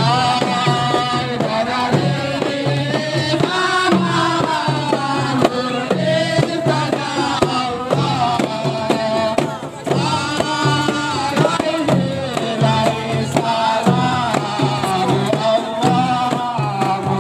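Hadrat devotional singing: a group of men chanting in chorus while beating hand-held frame drums (rebana) in a steady, repeating beat.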